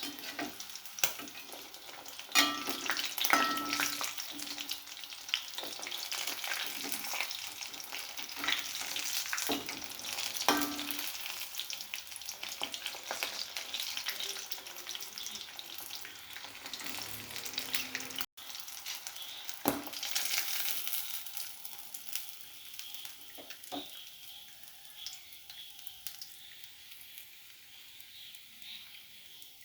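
Oats-coated chicken pieces frying in hot oil, a steady sizzle full of sharp crackles and pops. A few short ringing clinks sound two to three seconds in, and the sizzle slowly dies down toward the end.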